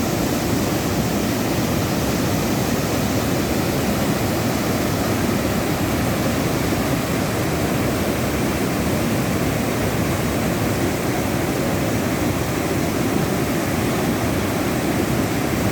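Water pouring out of a full lake (tank) in a steady, loud rush.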